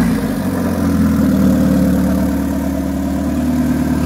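1996 Honda del Sol's four-cylinder engine idling steadily, heard from over the open engine bay. The car has a new Magnaflow muffler.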